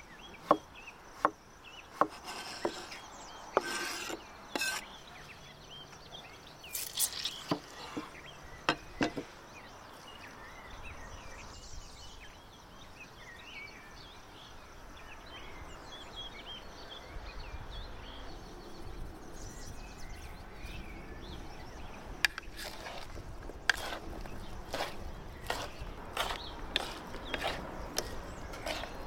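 Knife chopping on a wooden board: sharp strokes about every half second, turning scattered and irregular, then coming again in a run near the end. Faint outdoor insect and bird chirping runs beneath, heard most plainly in a quieter stretch in the middle when the chopping pauses.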